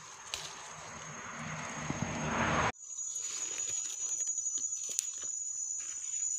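A steady high insect trill in forest undergrowth. Under it, a rustling hiss grows louder and cuts off suddenly about two and a half seconds in, followed by light, quick ticks and crackles.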